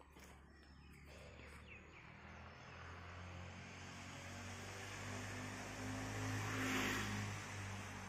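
A motor vehicle passing: its engine grows steadily louder, peaks about seven seconds in, then begins to fade.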